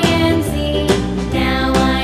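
Children's background music with a melody over a steady beat of about two beats a second.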